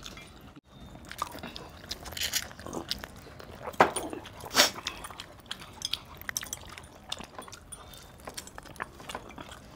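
Close-up eating sounds: a man biting and chewing chicken, with scattered wet smacks and small clicks. Two louder smacks come about four and four and a half seconds in.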